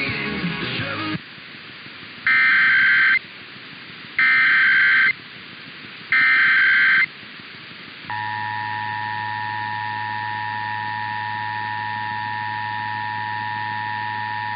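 Emergency Alert System test tones: music cuts off about a second in, then three buzzy SAME header data bursts of about a second each, a second apart; about eight seconds in the steady two-tone EAS attention signal begins and holds.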